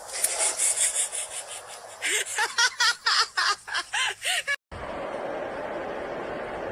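English bulldog's paws scuffing quickly on a gravel path, then a run of short, high, rising-and-falling yips and whines from the dog. After an abrupt cut about two-thirds through, a steady hum of road noise inside a moving car's cabin.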